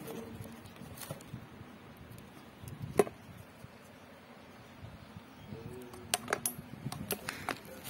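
Clear plastic spoon clicking sharply as it is pulled from its clip in an insulated lunch bag's lid, about three seconds in. Near the end, a quick run of lighter plastic clicks and taps as the cutlery and lunch box are handled.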